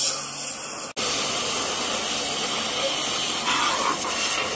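Starq ST-25 pressure washer's jet blasting into a cardboard box: a steady, loud hiss of high-pressure water as it cuts through the cardboard. The sound drops out for an instant about a second in.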